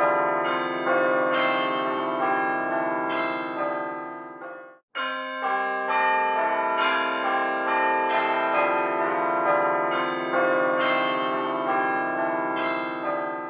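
Church bells pealing in a rapid sequence of overlapping strikes, each ringing on. The peal cuts off abruptly about five seconds in and starts again a moment later.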